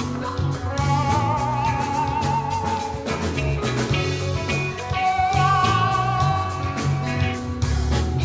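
Live rock jam band playing an instrumental passage: electric guitars, bass guitar and drum kit, with a lead line of long held notes that waver with vibrato.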